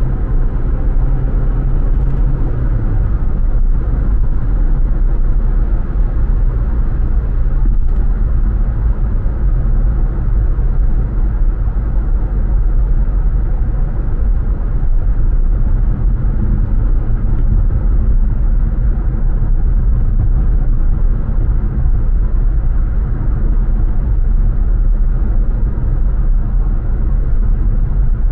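Car driving on city streets: a steady low rumble of engine and road noise, with the engine note dropping about two seconds in.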